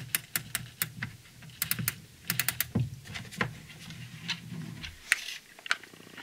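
Plastic body and film spool of a Holga 120 Pano camera clicking and tapping in quick, irregular strokes as 120 roll film is loaded by hand, with a brief rustle of the film's paper backing about five seconds in.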